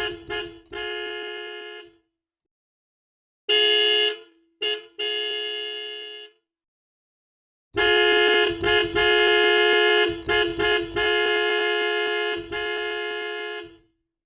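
Car horn sound effect: a two-note horn honked in groups of short toots and longer blasts, with dead silence between the groups. The last group starts about halfway in and is the longest, held for some six seconds with a few brief breaks.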